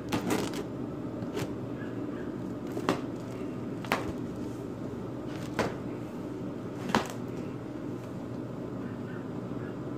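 Cardboard shipping box being cut open and its flaps pulled back: about six short, sharp cardboard snaps and crackles, over a steady low hum.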